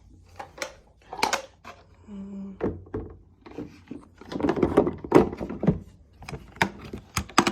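Hard plastic dirty-water tank parts of an upright carpet cleaner knocking and clattering as they are handled and fitted, an irregular string of knocks and clicks.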